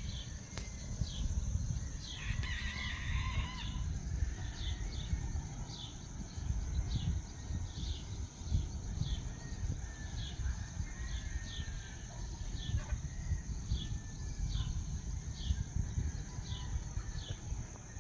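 A rooster crows once about two seconds in, over a steady high insect trill. A bird gives a short high chirp over and over, and a low rumble runs underneath.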